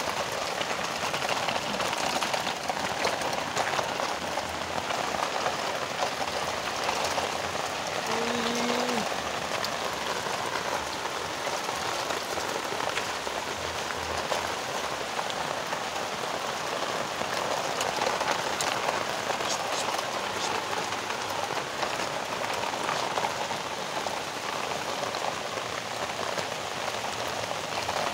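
Steady rain falling on wet gravel, a dense even patter of drops. A short tone sounds once, about eight seconds in.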